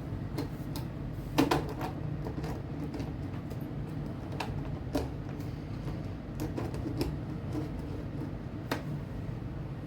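Irregular light clicks and taps of small plastic and metal parts as an HO scale model locomotive with its body shell off is handled, the sharpest about one and a half seconds in, over a steady low hum.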